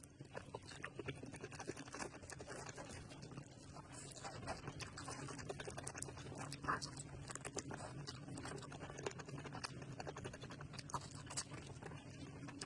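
Close-miked mukbang eating sounds: wet chewing and mouth smacking, a dense run of small clicks and crackles over a steady low hum.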